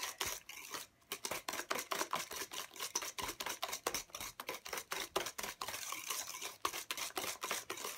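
Wire whisk beating thick cake batter by hand in a stainless steel bowl: rapid, steady clicking of the wires against the metal, pausing briefly about a second in.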